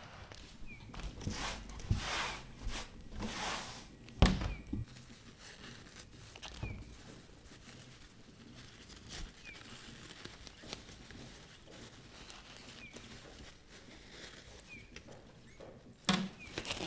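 Tissue paper and plastic wrapping rustling and crinkling as hands unwrap a potted plant, with a sharp knock about four seconds in and another near the end.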